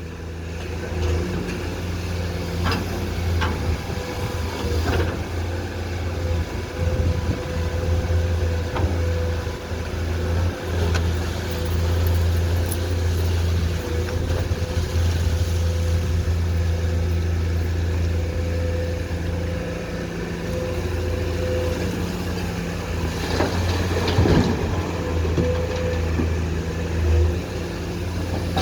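Komatsu PC210-10M0 hydraulic excavator's diesel engine running steadily, with a held whine over the drone and a few sharp knocks, the loudest group about three-quarters of the way through.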